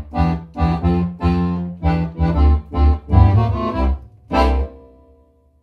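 Piano accordion playing a steady bass-and-chord accompaniment, then one last short chord about four and a half seconds in that dies away as the tune ends.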